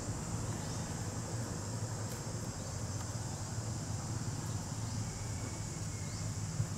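Steady high-pitched drone of insects, crickets or cicadas, over a low steady rumble, with a few faint short upward chirps now and then.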